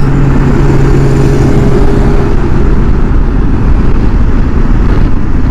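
Steady rush of wind and road noise from a Suzuki V-Strom 1050 V-twin motorcycle at highway speed, with a low hum that fades out about two seconds in.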